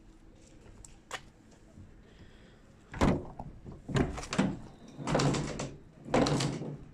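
Manual entrance door of a railway passenger coach being unlatched by its handle and pulled open: a faint click, then about five loud metallic clunks and knocks.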